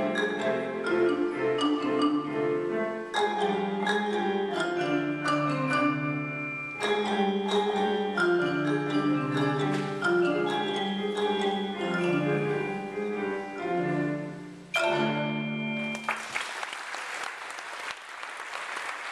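Marimba, with other mallet percussion, playing a quick run of struck notes that ends on a final chord about sixteen seconds in. An audience then applauds.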